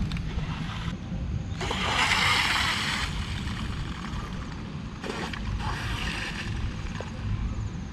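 Mini radio-controlled twin air-propeller boat running on water, with wind rumbling on the microphone throughout. A loud spell of hissing splash comes about two seconds in and a second, weaker one around five to six seconds, as the boat skims and hops over the water.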